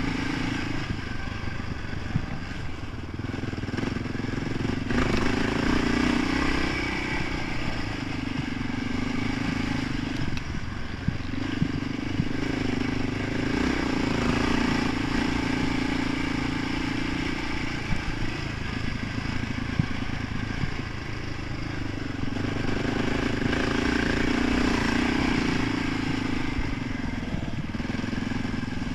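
Honda sport quad's engine heard from the handlebars, pulling strongly for stretches of several seconds and falling back between them as the throttle is opened and closed, with a few sharp knocks from the bumpy dirt track.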